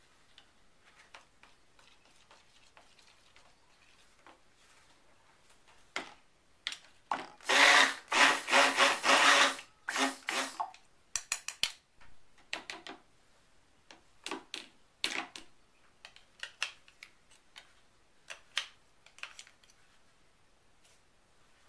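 Stick blender mixing soap batter in a small plastic cup, run in several short bursts over about three seconds, about a third of the way in. Scattered clicks and knocks of utensils against the cup follow.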